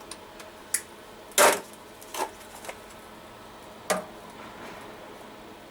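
Four separate sharp metallic knocks and clinks, the loudest about a second and a half in. They come from metal parts and tools being handled around a thin sheet-metal box, with no welding arc running.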